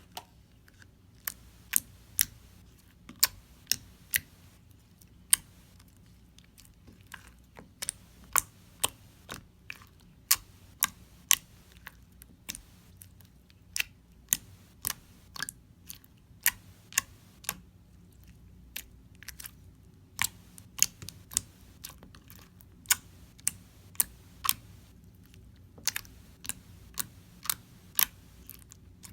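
Soft, stretchy metallic rose gold slime being squished and folded by hand, giving sharp clicks and pops at an uneven pace, one or two a second.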